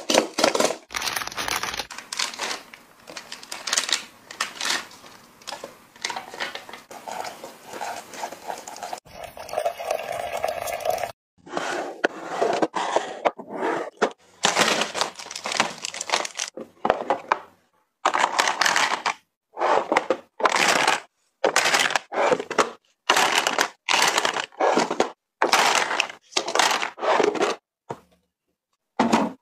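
A run of short handling sounds edited together with brief silent gaps between them: a cardboard box's perforated tab torn open, then packaging crinkling, tearing and clicking as items are unpacked.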